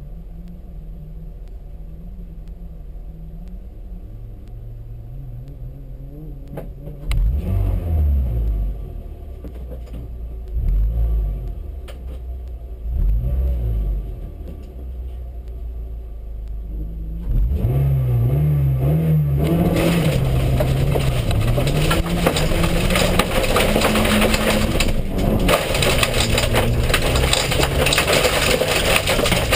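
Toyota Yaris rally car's engine idling, then revved in three short blips. About two thirds in it launches and runs hard through the gears on a gravel track, with loud gravel and tyre noise over the engine.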